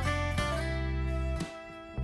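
Background music: an instrumental passage with held guitar notes over a deep bass, briefly dropping away about one and a half seconds in.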